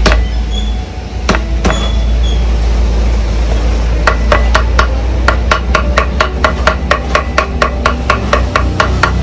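Cleaver mincing garlic and chili on a round chopping board: a few separate knocks at first, then from about four seconds in, fast even chopping at about five strokes a second.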